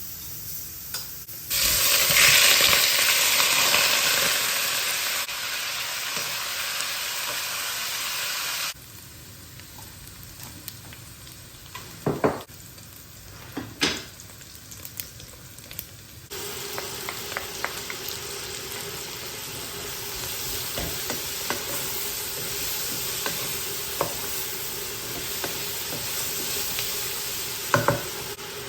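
Food sizzling in a hot pan, a steady hiss that changes level abruptly a few times, with a few sharp clinks of a utensil.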